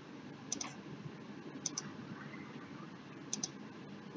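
Computer mouse clicking: three pairs of quick, faint clicks over a light room hiss.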